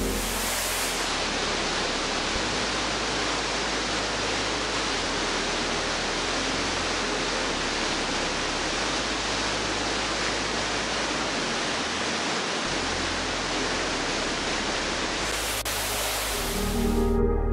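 Waterfall cascading over rock: a steady, even rush of white water. Music fades back in near the end.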